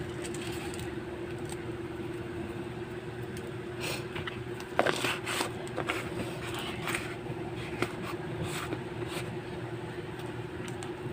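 Hands handling salted fish slices on a plate, giving a few short scrapes and clicks about four to nine seconds in, over a steady low hum and hiss.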